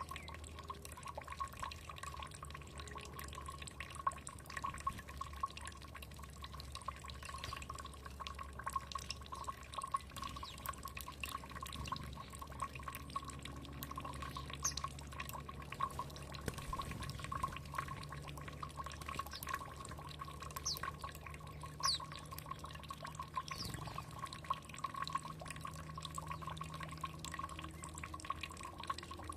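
Water trickling and dripping steadily with a dense patter of small splashes. A few faint, short, high bird chirps come in the second half.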